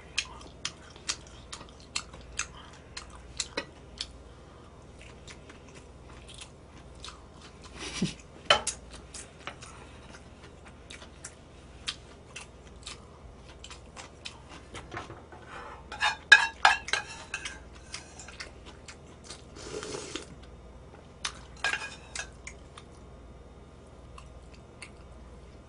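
Eating kimbap and ramyeon: chewing, with scattered sharp clicks and clinks of utensils against a metal pot and dishes, and a louder run of clattering about two-thirds of the way through.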